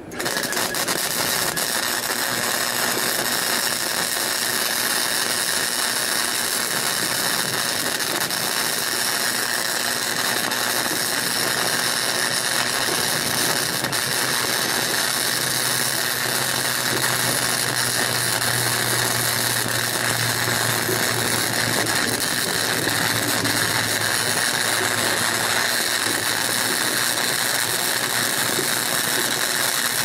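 Flux-core wire welder (Harbor Freight Chicago Electric 90-amp) arc crackling steadily and evenly while laying a continuous bead.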